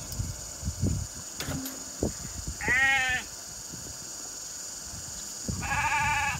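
Sheep bleating twice during shearing: a wavering bleat a little under three seconds in, then a second, steadier bleat near the end.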